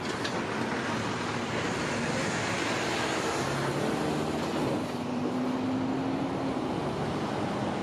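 Heavy-haul tractor unit pulling a railcar on a low-loader trailer, passing slowly: steady engine drone and tyre noise. A low engine hum comes up in the middle.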